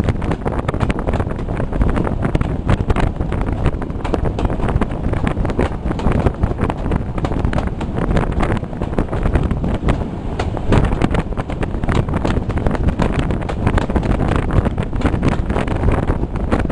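Wind buffeting the microphone at the open window of a moving diesel-hauled train, over the train's steady running noise.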